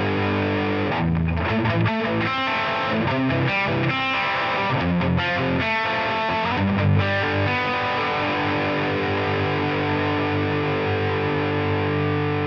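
Overdriven electric guitar, a Gibson Les Paul through a Blackstar HT Boost and a Hughes & Kettner Tube Meister 5 tube head, heard through a Sonicake Sonic IR loaded with a Vox AC30 2x12 cabinet impulse response. A held chord rings for about a second, then a run of single picked notes, then a long sustained chord from about eight seconds in.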